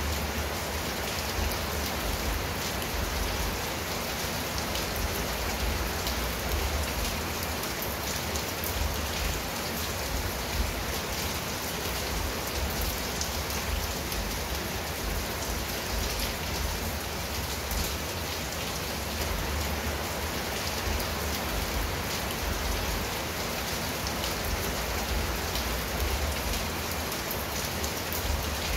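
Steady rain falling on a clay-tile roof and garden shrubs: an even hiss with a fine patter of individual drops, holding level without any thunder.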